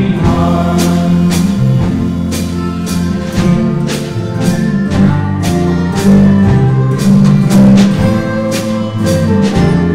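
Live contemporary church band playing a song: sustained instrumental chords over drums keeping a steady beat.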